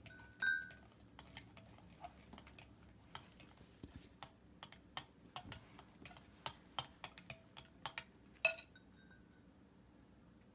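Spoon clicking and tapping irregularly against a mixing bowl as slime is stirred, with a louder ringing clink near the end.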